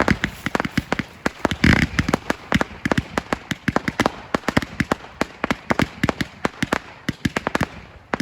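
New Year's Eve fireworks and firecrackers going off, sharp bangs in rapid, irregular succession, several a second, with a heavier blast about two seconds in.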